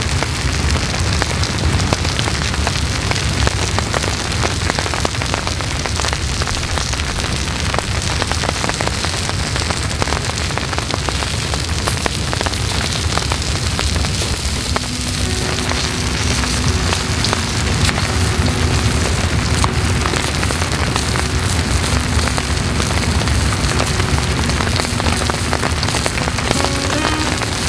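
Steady patter of light rain mixed with the sizzle of skewers grilling on a small hot plate. Soft music with held tones comes in about halfway through.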